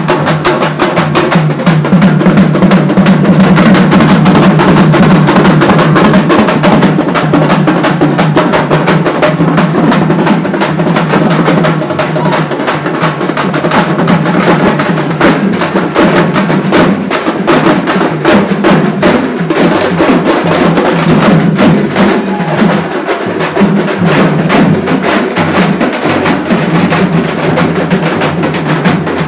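Loud, fast festival drumming: many drum strokes in a dense, unbroken rhythm.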